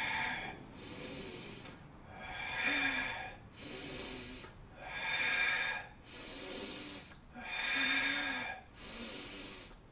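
A man breathing deeply and audibly in a steady rhythm, louder breaths about every two and a half seconds alternating with softer ones, about three and a half full breaths in all. This is strong paced breathing timed to a slow leg lift and lower.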